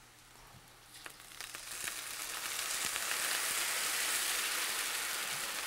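Chicken broth poured into a hot skillet of sautéed onions and red lentils, sizzling as it hits the pan. The sizzle starts about a second and a half in and grows to a steady hiss.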